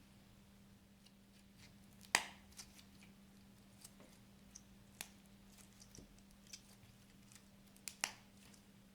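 Slime being played with by hand, giving scattered sharp clicks and pops, the loudest about two seconds in and near the end.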